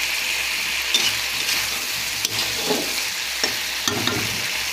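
Spiced potato cubes with capsicum and tomato sizzling in hot oil in a kadai as a spatula stirs and scrapes them: the slow sauté (kosha) stage of a potato curry. A few sharp knocks of the spatula against the pan stand out over the steady sizzle.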